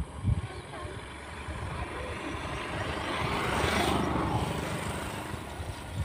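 A motor vehicle passing by: its engine and road noise swell over about three seconds, peak a little after the middle, then fade away. A few low thumps come near the start.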